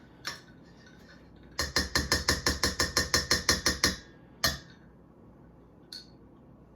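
A fast, even run of sharp knocks, about seven a second for a little over two seconds, then one more knock.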